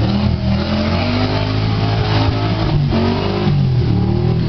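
Off-road 4x4 pickup's engine revving hard while pushing through deep bog mud, the pitch rising and falling several times.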